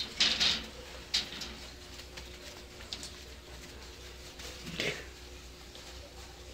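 Dachshund–basset hound mix puppies wrestling on puppy pads: a few short scuffling, rustling sounds of paws and bodies on the pads, with no whining.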